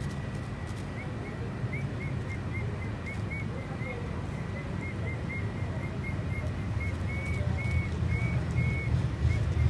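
A run of short, high chirps, a few each second, starting about a second in, over a steady low rumble and a faint steady high tone.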